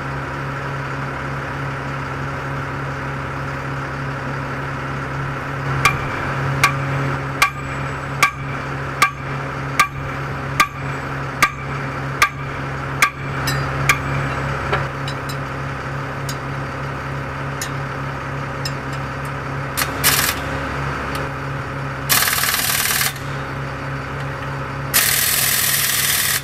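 Hammer strikes on steel, about eleven evenly spaced blows a little under a second apart, over a steady engine idling. Near the end come a few short bursts of hiss.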